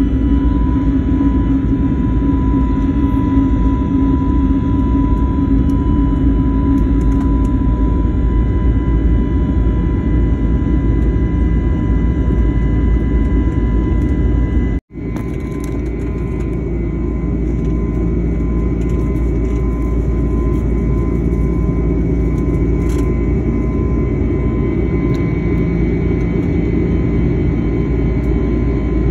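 Airliner cabin noise during the climb after takeoff: the steady roar of the engines and rushing air, with a steady whine over it. It breaks off for an instant about halfway through, then carries on the same.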